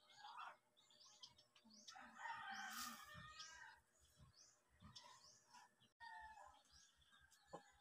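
A rooster crows faintly once, about two seconds in, over small birds chirping again and again.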